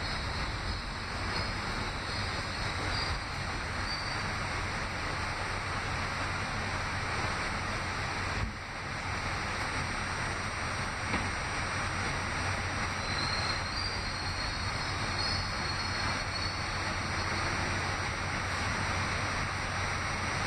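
Running noise heard from inside an R68A subway car in motion: a steady rumble of wheels on the rails over a constant low hum. A faint high wheel squeal comes in about two-thirds of the way through.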